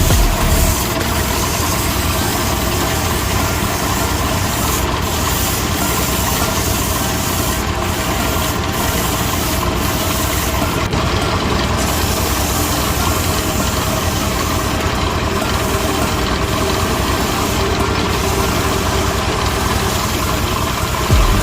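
A power tool running steadily and continuously, with a dense, even mechanical noise.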